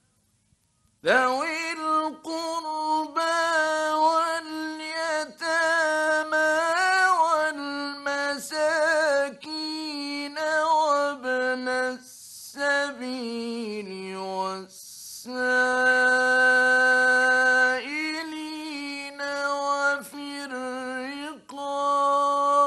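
A male reciter's voice chanting the Quran in the melodic mujawwad style, heard in an early-1960s radio recording. It sings long, ornamented notes, with a stepwise falling phrase and a short break for breath in the middle.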